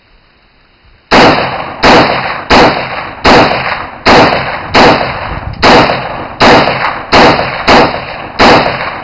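Rapid semi-automatic fire from an AR-15-type rifle (YHM Black Diamond Specter) fitted with a BattleComp muzzle brake: about eleven very loud shots, roughly one every 0.7 s, starting about a second in, each with a short echoing tail. The brake makes the rifle really loud while keeping muzzle climb low.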